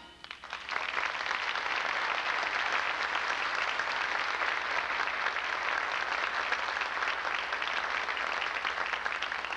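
Theatre audience applauding at the end of a song. The clapping swells in during the first second and then holds steady.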